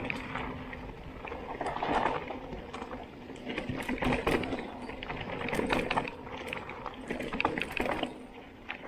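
Mountain bike rolling down a dirt forest singletrack: tyres running over dirt and roots, with the bike rattling over bumps in several louder surges.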